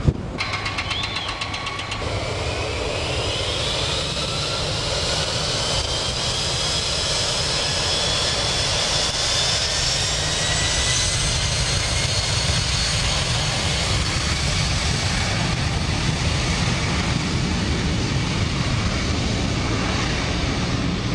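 Boeing 747's four jet engines spooling up to take-off power: a whine rising over a steady deep roar, levelling off about ten seconds in and then holding at full thrust.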